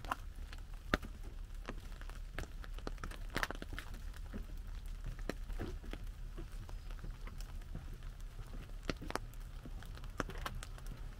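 Raindrops tapping on an umbrella overhead: many irregular sharp taps, some louder where bigger drops fall from the trees, over a steady rain hiss.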